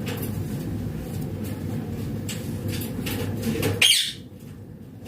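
Green ringneck parrot giving one short, high screech about four seconds in, over a steady low background noise that drops away just after it.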